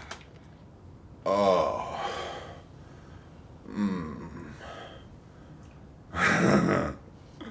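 A person sighing: two voiced sighs that fall in pitch, the first about a second in and the second near the middle, then a loud breathy gasp near the end.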